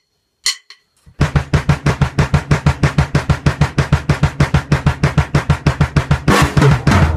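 Drum kit roll on double bass drum, snare, rack tom and floor tom: after a single click about half a second in, an even run of strokes at about eight a second starts just after a second in, over the steady pulse of the double kicks. It grows louder and brighter near the end as the roll builds.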